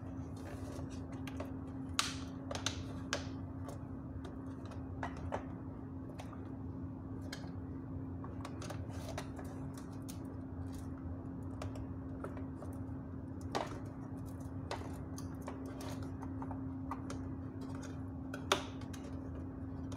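Scattered clicks and light knocks of hands handling an LED floodlight's housing and its driver compartment as the parts are fitted back and closed, louder about two seconds in, near the middle and near the end. A steady low hum runs underneath.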